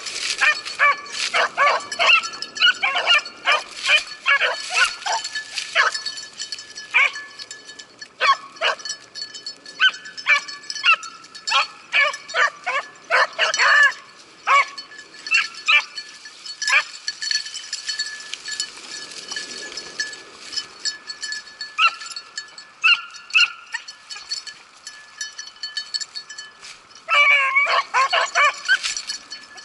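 A pack of beagles baying as they trail a rabbit: a quick run of short barks and bays that thins out through the middle and bunches up again near the end.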